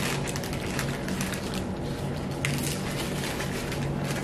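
Close-up chewing and crunching of hard-shell tacos, with paper taco wrappers rustling: a stream of small crackles and clicks.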